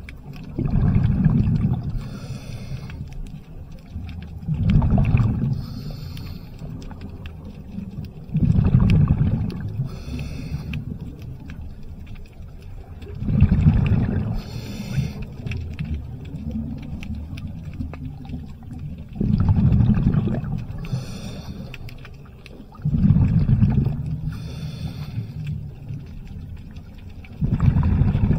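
Scuba diver breathing through a regulator underwater: a gush of exhaled bubbles about every four seconds, each followed by a fainter, fizzing hiss, seven breaths in all.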